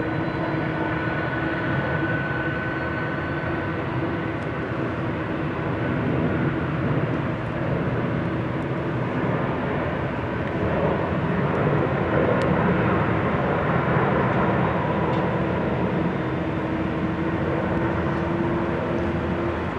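Boeing 777-300ER's twin GE90 turbofan engines during touchdown and landing rollout: a steady jet rumble with a held tone running through it. It grows louder about halfway through.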